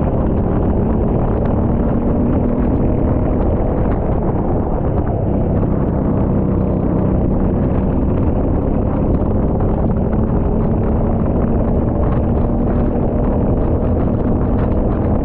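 Rental go-kart engine running steadily at speed, its pitch drifting only slightly, over a dense low rumble.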